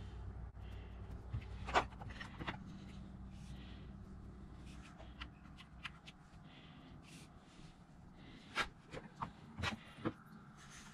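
Scattered clicks and knocks from handling an old side-by-side shotgun on a wooden workbench. The louder knocks come about two seconds in and again in a quick cluster near the end, over a faint low rumble at the start.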